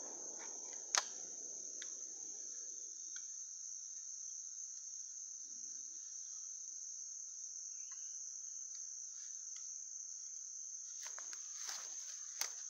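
Steady high-pitched chorus of insects, with a sharp click about a second in and a low rumble dying away over the first few seconds. Rustling and a few clicks come near the end.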